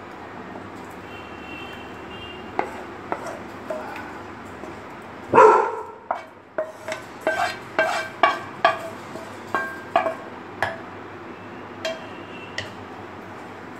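A spatula scraping thick custard out of a pan into a glass bowl, with a run of sharp clinks and knocks as it taps against the pan and bowl rim, most of them between about six and eleven seconds in. One louder, longer sound comes about five seconds in.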